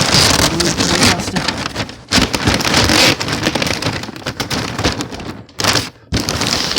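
Loud crackling and rustling of paper and box packaging, in bursts that stop and start abruptly, as the present box holding a puppy is handled.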